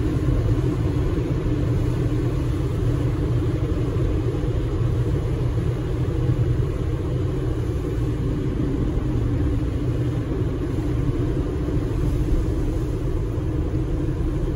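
Steady low road and tyre rumble inside the cabin of a 2022 Jeep Compass Longitude T350 at highway speed, easing off from about 120 to 100 km/h.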